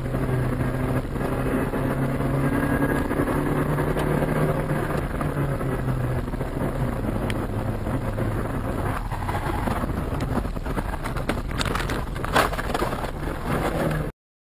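A car's engine and road noise heard from inside a moving car, a steady low hum. Near the end come a series of sharp knocks and a loud bang, the loudest sound: a collision.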